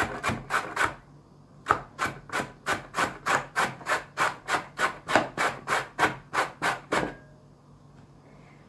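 A carrot being grated by hand on a stainless steel box grater: quick scraping strokes, about three a second, with a short pause about a second in. The strokes stop about seven seconds in.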